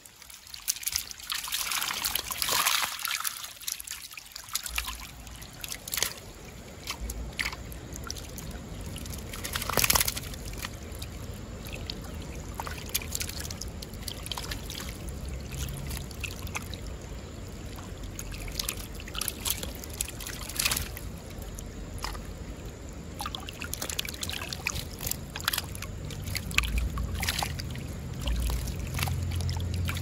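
Creek water trickling and splashing, with many small irregular splashes and a sharper one about ten seconds in.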